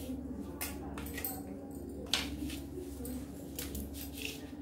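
A wooden L-square ruler being slid and set down on a paper pattern sheet, making scattered light taps and clicks, the sharpest about two seconds in, with paper rustle and pen strokes as a straight line is drawn. A steady low hum runs underneath.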